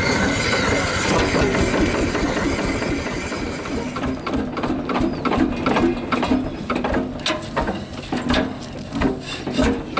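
HSCS Red Star G-35 single-cylinder hot-bulb semi-diesel tractor engine running: a steady mechanical noise at first, then from about four seconds in a run of sharp, uneven knocks.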